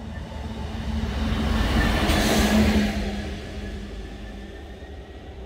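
Diesel freight locomotive passing at speed: its engine drone and the rush of its wheels on the rails swell to a peak about two to three seconds in, then fade as it moves away.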